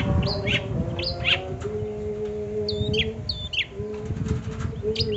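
Long-tailed shrike (cendet) singing in a rapid run of short, sharp chirps, each sliding down in pitch. A steady low hum sounds under the song in the second half.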